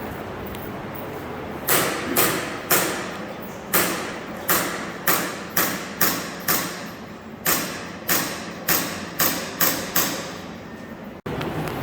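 Umarex Glock 17 Gen 5 gas blowback airsoft pistol firing a string of about fifteen shots at an uneven pace, roughly one every half second to a second.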